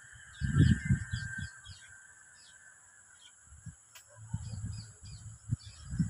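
Wind buffeting the microphone in two spells of low rumbling gusts. Behind it, small birds chirp and a steady high insect drone carries on.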